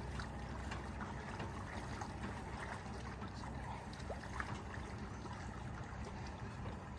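Water sloshing and trickling, with scattered small splashes, as a person wades and shifts foam float blocks under a boat lift frame.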